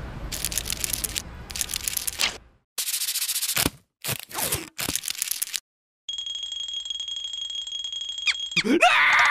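Cartoon sound effects in quick succession: a few crackling bursts, two short silences, then a steady high-pitched alarm-like tone for about two seconds. A character's rising squeal comes in near the end.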